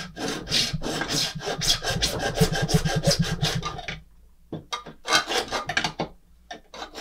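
Small double-edged hand saw cutting through thin plastic, in quick back-and-forth strokes of about three or four a second. The sawing stops briefly twice in the second half.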